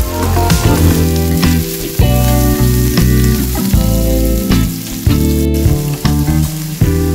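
Diced onions and ginger sizzling as they sauté in oil in a stainless steel pot, stirred with a wooden spatula partway through. Background music with plucked notes plays over it.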